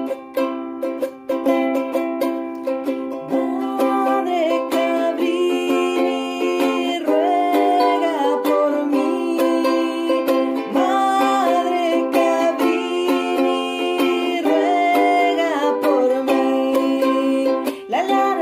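Ukulele strummed in steady chords, with a woman's singing voice coming in about three seconds in and carrying a melody over the strumming.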